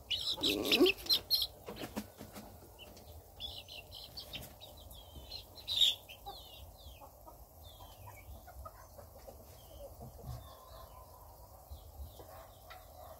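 Chicks peeping: many short, high, falling calls, loudest in a burst over the first second and a half and again briefly near the middle.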